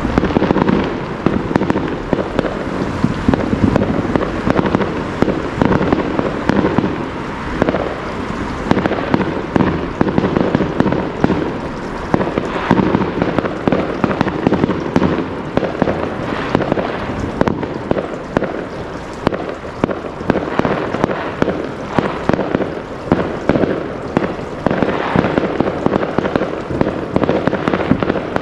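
Fireworks going off: a dense, unbroken stream of sharp bangs and crackles.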